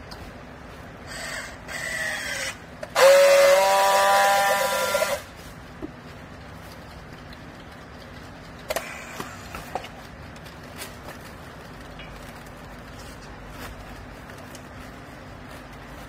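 Battery-powered handheld strapping tool running on a plastic bale strap: a shorter motor whine about a second in, then a louder, steady whine lasting about two seconds from three seconds in, as the tool tensions and seals the strap. A few sharp clicks follow near the middle.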